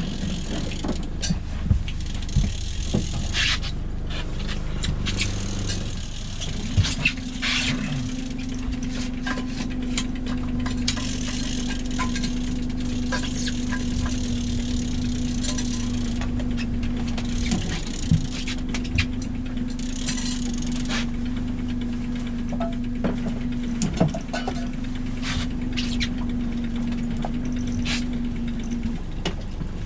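A boat's engine runs steadily underneath scattered clicks, knocks and rattles of gear on deck. About seven seconds in, a steady motor hum starts. It breaks briefly twice and stops shortly before the end.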